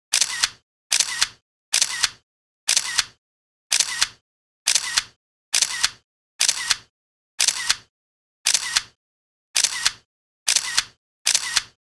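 Camera shutter sound effect: a shutter click repeated at a steady pace a little under once a second, about fourteen times, each one a quick double click.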